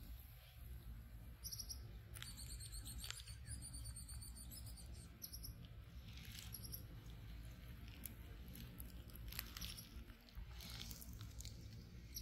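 Baby capuchin monkey chewing a banana: faint, scattered wet smacking clicks. From about one and a half to five and a half seconds in, a run of high, quick chirps sounds.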